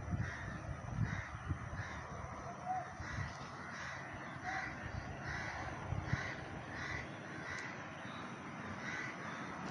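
Crows cawing, a series of short harsh calls repeated every half-second or so, with low rumbling on the microphone in the first two seconds.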